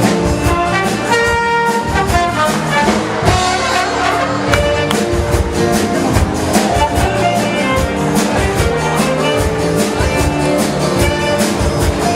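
Recorded upbeat music with brass, trumpet and trombone, over a drum kit's steady beat.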